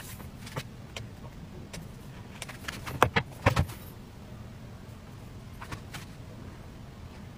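A few sharp knocks and clatter about three seconds in as a plastic electric crepe pan is handled and set down on a wooden board while a cooked crepe sheet is lifted off, with faint scattered ticks over a low steady hum.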